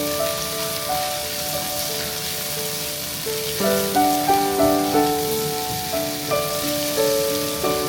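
Background music: a gentle melody of held notes and chords, over a steady high hiss.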